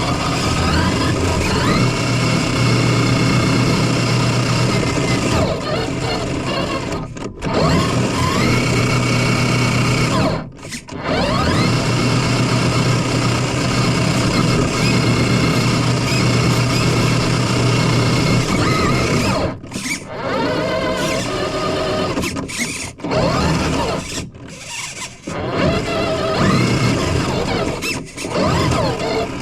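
Small FPV drone's brushless motors whining, rising and falling in pitch with the throttle. The sound drops out abruptly several times.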